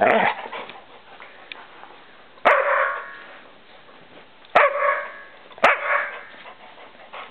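Dog barking in play, four short barks: one at the start, then a pause, then three more a second or two apart, the last two close together.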